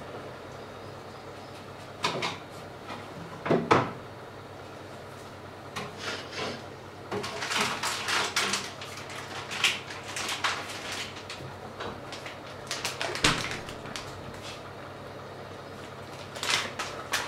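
Kitchen cupboard doors opening and closing: several sharp knocks, the loudest a few seconds in, with a stretch of rummaging clatter in the middle.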